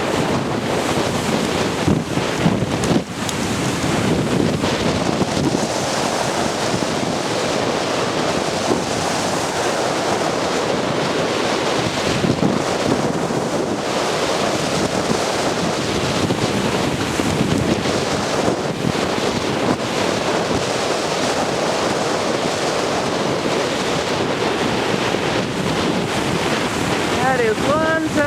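Strong wind blowing across the microphone over the sound of waves washing in, a steady rushing noise with a few stronger gusts early on.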